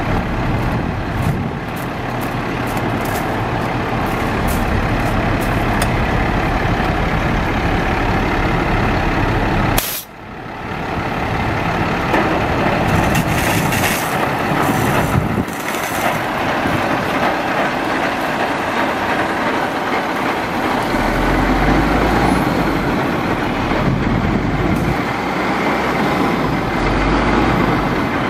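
International 4900 water truck running with its water jet spraying: a loud, steady rush of engine and spray. It drops off sharply about ten seconds in and quickly comes back, with a deeper rumble in the last several seconds.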